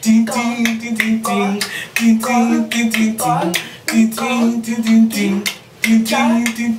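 Lively dance music with singing: a short phrase comes round about every two seconds over a steady low note, with sharp percussive hits throughout.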